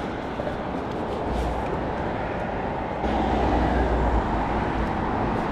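Steady outdoor road and traffic noise, with a low rumble that grows louder about three seconds in.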